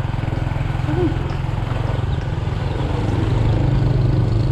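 Motorcycle engine running steadily, its low firing pulses even throughout.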